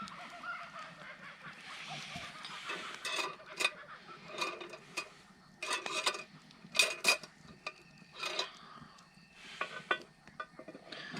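Geese honking in the first couple of seconds, then a run of sharp metal clinks and knocks as camp cookware and a camp oven are handled.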